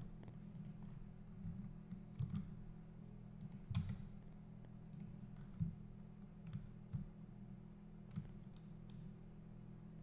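Computer mouse clicks, scroll-wheel turns and keyboard key presses, short and scattered about once a second, over a steady low electrical hum.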